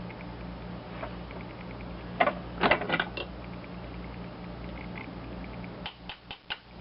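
Scattered light clicks and taps of small metal parts and a drill being handled on a workbench, over a steady low electrical hum.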